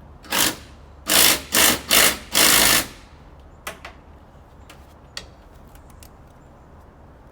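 Power driver tightening a nut, run in five short bursts, the last one a little longer, followed by a few light clicks.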